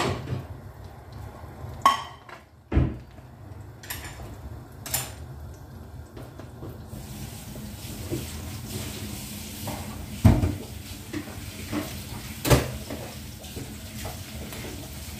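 Kitchenware clattering: a scattering of sharp knocks of pans, plates and utensils over a steady low hum, with a faint steady hiss from about halfway through as the egg fries in the pan.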